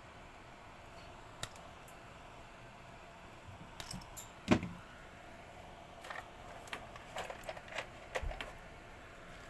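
Scattered clicks and clinks of pliers and small metal parts as a stand fan's motor wiring is worked on, with one sharper knock about halfway through and a quick run of clicks near the end.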